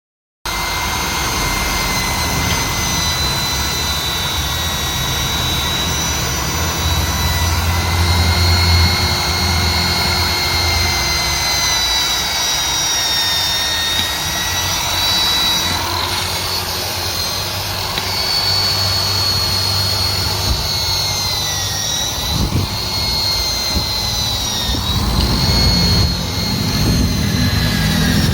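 Electric drill fitted with a wire brush running continuously, scouring carbon deposits off a metal engine part. Its steady whine sags in pitch now and then as the brush is pressed into the work.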